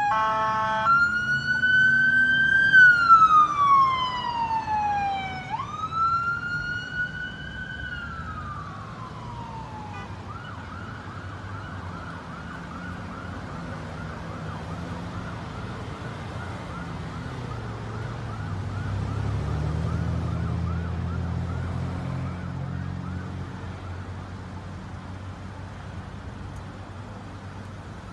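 Police car's electronic siren, first a brief horn blast, then two slow wails rising and falling, then switching about ten seconds in to a fast yelp that grows fainter as it moves away. Traffic engines rumble underneath, swelling briefly past the middle.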